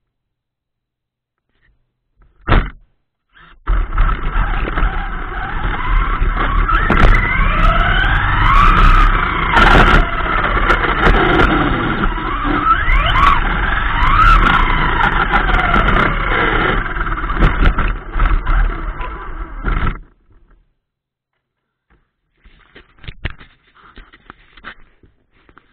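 Wltoys K939 RC car's 3656 4000kv brushless motor on a 3S 11.1 V LiPo driving the car hard, heard from on board: a whine that sweeps up and down in pitch with the throttle over a loud rush of drive and road noise. There is a short burst about two and a half seconds in; the run starts about a second later and cuts off sharply about twenty seconds in.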